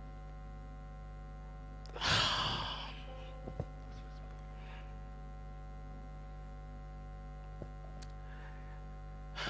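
A man's long sigh about two seconds in, lasting about a second, over a steady electrical hum; a couple of faint clicks follow.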